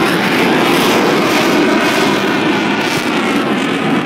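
Jet engine noise from Blue Angels F/A-18 Hornets, each powered by twin turbofans, flying a slow pass overhead. The noise is loud and steady, and eases slightly near the end.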